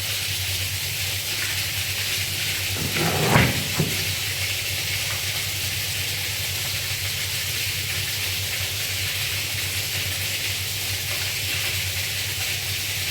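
An electric water pump motor running with a steady low hum under a continuous hiss of rushing water. A brief louder clatter comes about three seconds in.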